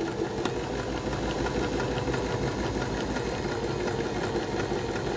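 Janome My Style 20 sewing machine running steadily with a rapid, even stitch rhythm. It is sewing the reverse leg, step three, of a four-step buttonhole.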